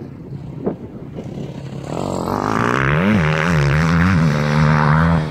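Small motocross bike's engine revving as it rides close past, its pitch rising and falling with the throttle. It grows loud from about two seconds in and stops abruptly near the end.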